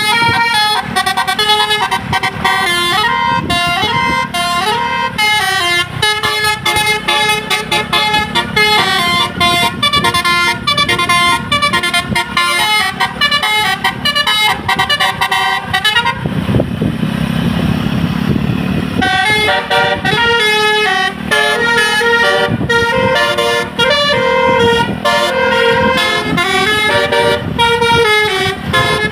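A bus's telolet 'basuri' musical air horn playing quick melodies, the notes stepping up and down in runs. A little past halfway it stops for about three seconds, leaving only engine and road noise, then starts up again.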